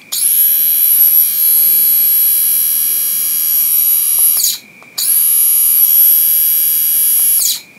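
Xiaomi Smate ST-R101 rotary electric shaver running with a steady high whine from its 4500 RPM motor, sounding smooth. It runs for about four and a half seconds, stops, then is switched on again for about two and a half seconds; each time it winds down as it stops.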